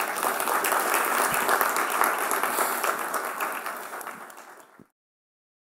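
Audience applauding: dense clapping that thins out and then cuts off abruptly about five seconds in.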